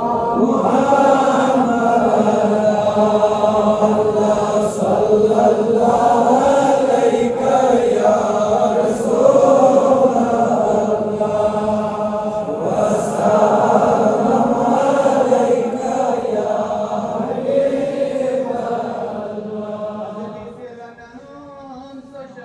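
Male devotional Islamic chanting: long, slowly wavering melodic phrases, dying down in the last few seconds.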